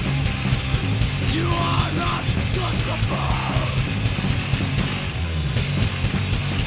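Punk rock mix playing back: distorted electric guitars, bass and drums with a vocal line, processed by a UAD Fatso saturation and compression plugin on the mix bus, which is switched to bypass partway through.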